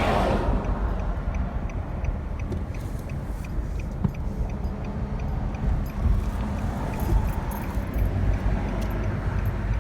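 Steady low rumble of a car, heard from inside the car, with faint high ticking over it.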